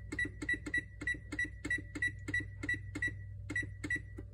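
Electric oven's control panel beeping as the bake temperature is stepped up toward 450 °F: a rapid run of short, high electronic beeps, about four a second, with a brief pause about three seconds in, stopping near the end as the setting is reached. A low steady hum sits underneath.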